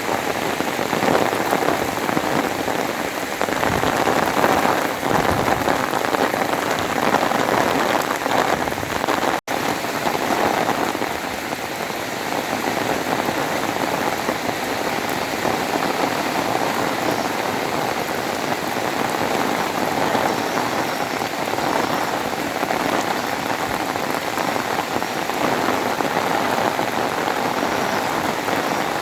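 Heavy rain pouring steadily, a dense even hiss that cuts out for an instant about nine seconds in.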